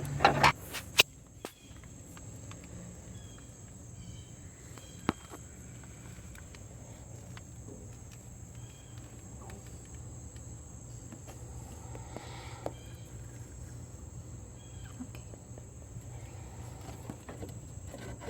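Faint, scattered clicks and scrapes of hand tools working a quick-disconnect fuel-line fitting, releasing the fuel line from the tank, with a sharper click about five seconds in, over a steady low hum.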